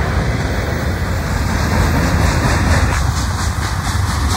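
Freight train cars rolling past, a steady loud rumble of steel wheels on the rails with some clickety-clack, as an autorack and then boxcars go by.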